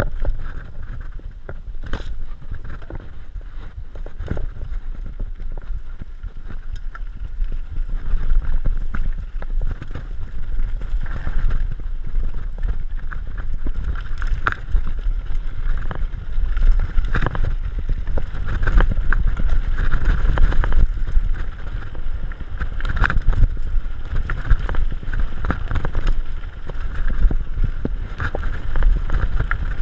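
Merida mountain bike ridden over a dirt track and a stony gravel road: wind rumbling on the microphone, with frequent rattles and knocks as the bike jolts over bumps. The noise grows louder in the second half.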